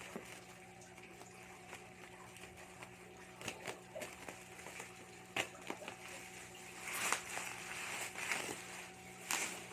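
Parcel packaging being handled: scattered light clicks and rustling, busier from about seven seconds in, over a steady low hum.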